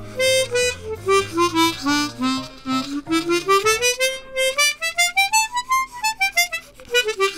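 Hohner Xpression 12-hole chromatic harmonica played as a run of single notes: it steps down, climbs steadily to a high note about six seconds in, then falls again. The tone is slightly raspy and a little dark, which the player guesses comes from some air leakage in this plastic-bodied harmonica.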